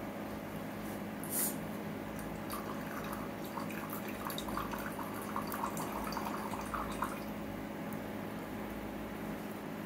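Water poured from a small steel vessel into a miniature clay pot, trickling and dripping in short, irregular bursts for a few seconds. A short noise comes about a second and a half in.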